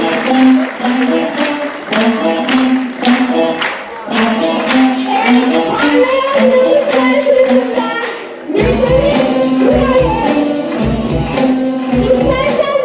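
Loud recorded music with a melody over a steady percussion beat; about eight and a half seconds in it cuts abruptly to a different piece with a heavy bass beat.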